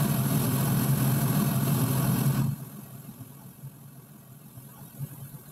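Pink noise played through a small loudspeaker: a steady, loud hiss with a heavier low end, cutting off suddenly about two and a half seconds in. Faint background remains after it, with a soft click near the end.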